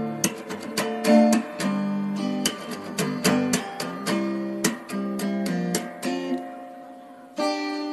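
Background music of acoustic guitar, strummed and picked. A chord rings out and fades about six seconds in, then the playing starts again.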